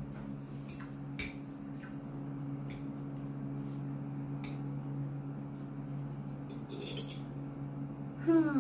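Metal fork clinking and scraping against a plate while twirling and lifting noodles: a few scattered light clicks over a steady low hum.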